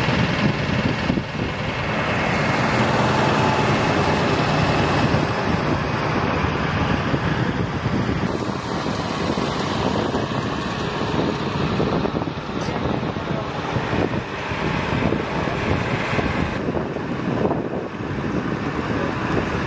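Large buses running, heard together with steady wind noise on the microphone.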